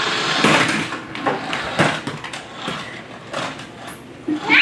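Battery-operated bump-and-go toy ambulance running on a hardwood floor: a small motor whirring and plastic wheels rattling, with scattered knocks, louder in the first second and quieter after.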